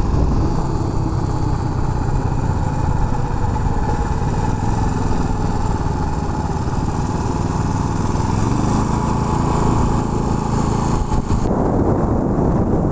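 Small generator (genset) engine on a motorized bicycle running steadily. Near the end the sound changes, the higher hiss dropping away.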